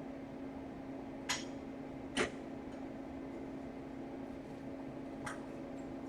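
Three short clicks of small hard objects being handled, the second the loudest, over a steady low hum.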